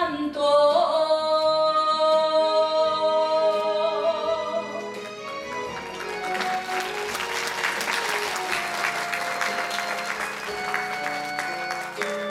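Female enka singer holding one long note with vibrato over a recorded backing track, ending about five seconds in. Audience applause then takes over, running on over the instrumental ending of the song.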